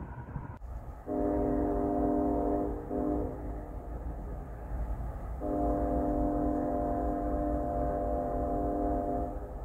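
Locomotive air horn sounding a chord: a long blast, a short blast, then a long held blast that stops near the end, over a steady low rumble.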